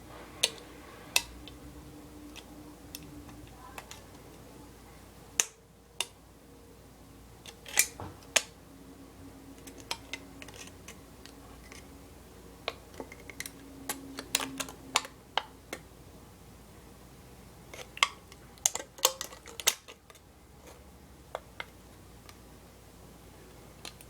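Scissors snipping thin aluminum can sheet: irregular sharp clicks, singly and in small clusters, with a busier run of snips a little past the middle.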